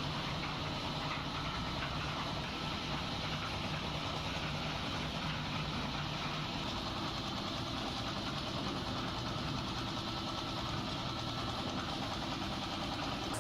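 A machine's engine running steadily, with no change in speed, until the sound changes abruptly at the end.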